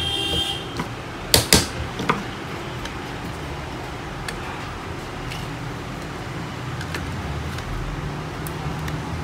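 Hard plastic parts of a Canon 337 toner cartridge clicking and knocking as the drum unit is fitted back into place: two sharp clicks about a second and a half in, a third just after, then a few faint ticks. A steady low traffic hum runs underneath.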